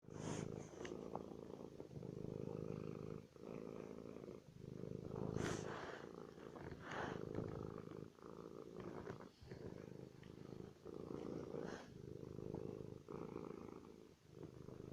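Domestic cat purring close up, a low purr going in and out with each breath and a short break between breaths.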